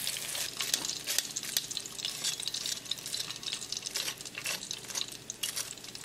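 Breaded salmon pieces sizzling and crackling in a wire deep-fryer basket hung just above the hot oil to drain: a fizz that thins out after the start, with many irregular sharp pops. The crackle is the sound of the fully fried, crunchy coating.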